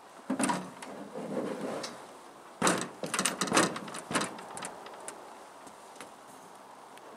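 A small aluminium skiff being handled on a wooden dock, with hollow metal knocks and scraping. A few sharp knocks come first, then a scrape, then a quick run of loud knocks and clatters about two and a half seconds in, fading to quieter ticks.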